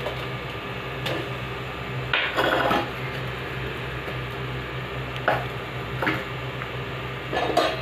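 Small steel bowl clinking and knocking against a cooking pan as jaggery is tipped and tapped out of it into the gravy, a handful of scattered knocks over a steady low hum.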